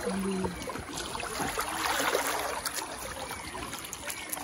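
Shallow river water running and trickling over rocks.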